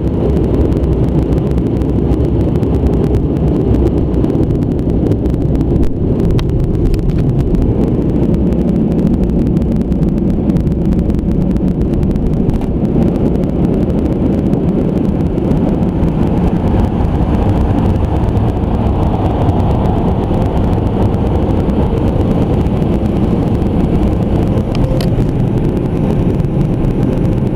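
Steady low rumble of a Dodge Charger moving slowly, its engine and road noise heard from inside the cabin.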